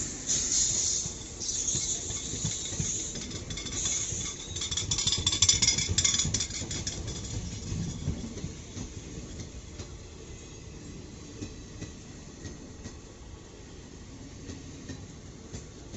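ICF passenger coaches of an express train rolling past on a curve, their wheels clattering on the track. Loudest in the first six seconds or so, then fading as the train draws away.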